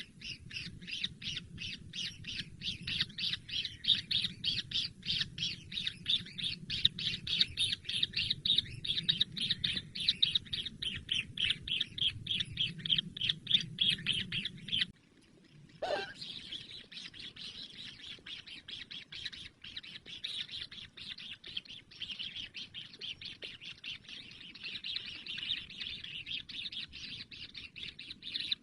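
Kingfisher nestlings begging with rapid, repeated chirps, about four a second, that break off for a moment about halfway through and then carry on.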